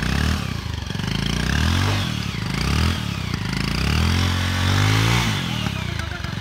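Motorcycle engine revving hard, its pitch rising and falling twice, as the bike tries to climb a dirt slope. The bike is stuck, hung up on a tree stump under its frame.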